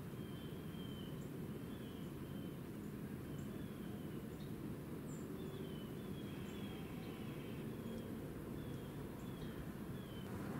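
Small birds calling with short, high notes that slide downward, repeated irregularly, over a steady low background rumble.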